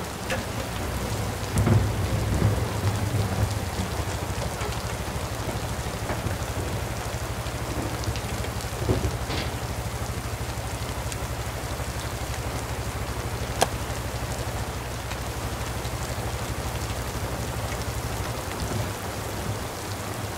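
Steady rain hiss over a low steady rumble, with one sharp click about two-thirds of the way through.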